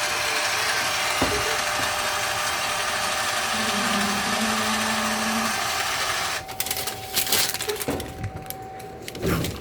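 Scale label printer's paper-feed motor running steadily as the force feed button is held, advancing the paper, then stopping about six seconds in. After it come irregular clicks and rustling from handling the printer and paper.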